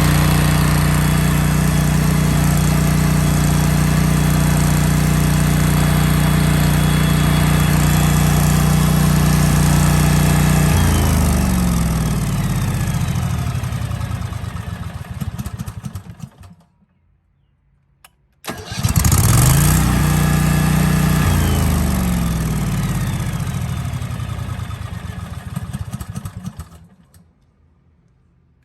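Vanguard 14 hp gas generator engine running steadily, then cutting off and winding down to a stop over about five seconds. After a short silence it starts again, runs for a couple of seconds, and winds down to a stop once more.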